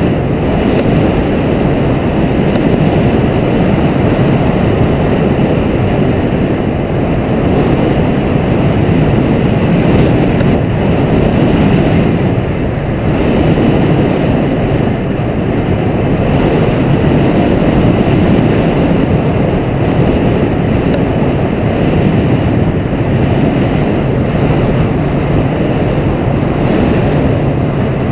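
Steady, loud rush of wind over the microphone of a camera mounted on a hang glider's wing in flight.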